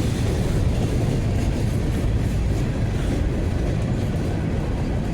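Freight cars of a BNSF manifest train rolling past, a steady rumble of wheels on rail.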